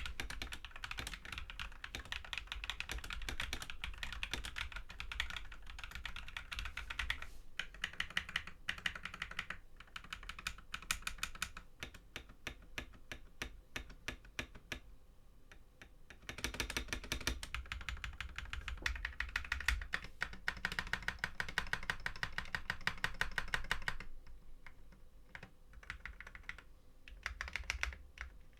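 Typing on an Akko 3061S 60% mechanical keyboard with factory-lubed Akko Cream Yellow Pro linear switches and PBT keycaps, fairly quiet. Runs of fast keystrokes alternate with stretches of slower, separate key presses.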